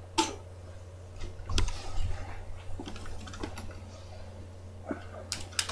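Scattered light clicks and a few dull knocks from someone moving about and handling things at a computer desk, with a steady low hum underneath.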